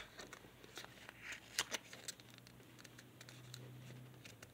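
Origami paper being opened out and pressed into a fold by hand: soft, scattered crinkles and crisp paper clicks, the loudest about a second and a half in.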